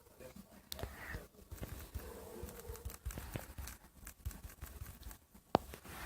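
Faint handling noise: scattered light clicks and brief rustling, with one sharper click about five and a half seconds in.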